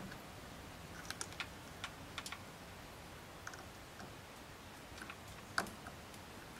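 Faint, scattered small clicks and ticks of fingers working small plastic wire connectors on taillight wiring, the sharpest click about five and a half seconds in.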